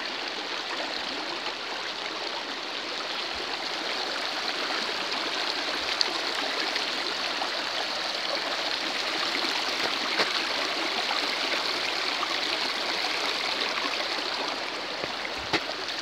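Shallow river running over rocks: a steady rush and babble of flowing water, with a few faint clicks.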